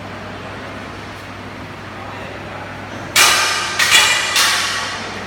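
Welding arc struck three times in quick succession, each strike a sudden loud crackling hiss that fades within about half a second, over a steady electrical hum.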